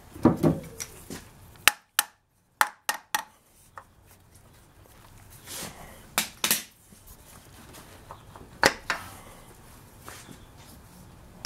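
Metal clinks and knocks as the water pump pulley and its bolts are taken off by hand on a BMW 528i's engine: a dull knock right at the start, a quick run of sharp clicks a couple of seconds in, then a few more clinks around the middle and once more later on.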